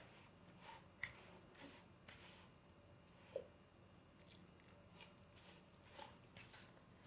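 Near silence, with faint, scattered soft squishes and small clicks from hands kneading crumbly flour dough in a plastic bowl.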